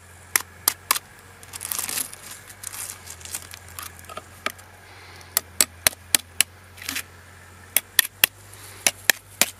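Metal tweezers clicking and tapping against hardened lead and eggshells, with a few seconds of aluminium foil crinkling about a second and a half in. The clicks come singly and in quick runs.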